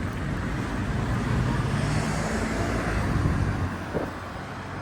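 Street traffic at an intersection: a vehicle passes by, its tyre and engine noise swelling over the first few seconds and then dropping away about four seconds in.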